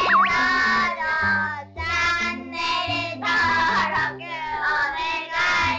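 Upbeat sung outro jingle: a high voice singing short phrases over a stepping bass line, with a springy cartoon 'boing' sound effect right at the start.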